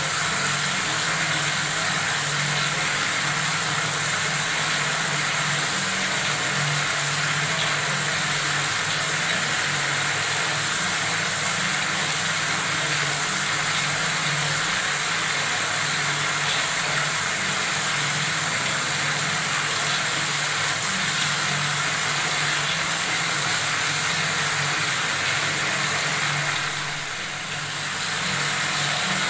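Water running steadily from a tap, a constant splashing hiss, dipping briefly in level near the end.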